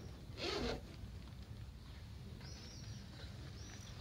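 A short rustling scrape about half a second in as the homemade cardboard-and-foil solar cooker and its pot bag are handled. Later come two faint, high chirps, typical of a small bird.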